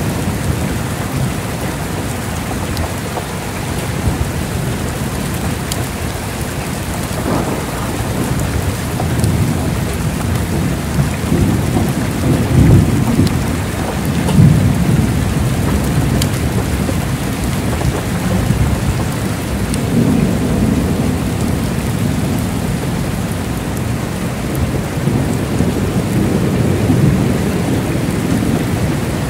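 Heavy rain falling steadily, with low rumbles of thunder rolling in and out, the loudest about halfway through.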